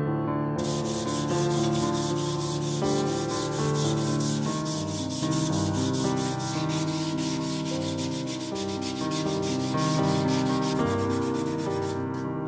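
Rapid back-and-forth hand sanding, several strokes a second, with abrasive paper rubbed over the rosewood stock of an old try square; the strokes stop near the end. Background music with held notes plays throughout.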